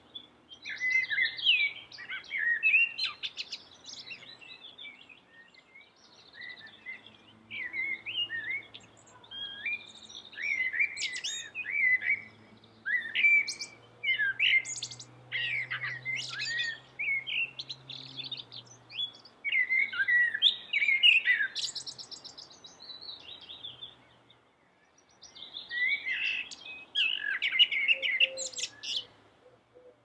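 Male common blackbird singing: a run of phrases of quick rising and falling notes, several ending in very high, thin twitters, with short pauses between them and a longer break about six seconds from the end.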